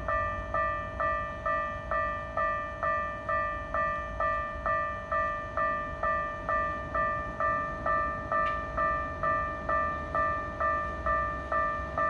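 Japanese level-crossing electronic warning bell ringing its repeated clang, just under three strikes a second, each a sharp chime that fades quickly. The bell is the crossing's warning that a train is approaching.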